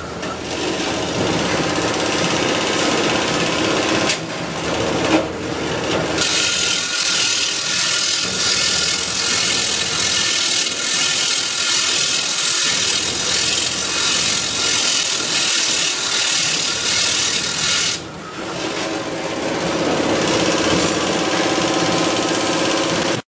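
Pedestal grinding wheel running, with bundles of metal rods pressed against it: a continuous harsh grinding that eases off briefly twice.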